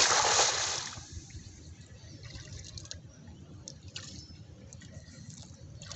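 Cast net slapping down onto shallow floodwater: a loud splash that lasts about a second. After it, quieter drips and small splashes of water.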